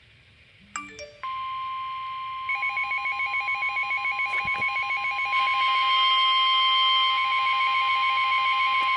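Midland HH54VP2 weather radio sounding a warning alert. After a short run of beeps about a second in, the steady NOAA Weather Radio 1050 Hz warning tone starts. A few seconds later a fast-pulsing alarm beep joins it, marking an incoming severe thunderstorm warning.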